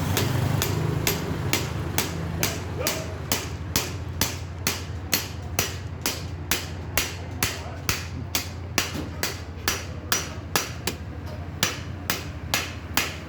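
Repeated hammer-like metal knocks at an even pace of about two a second, from work on a motorcycle front fork.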